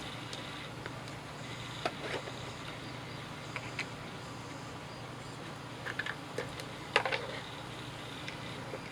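Scattered light clicks and knocks of small objects being handled and moved about while rummaging on a workbench, over a steady low hum; the sharpest knock comes about seven seconds in.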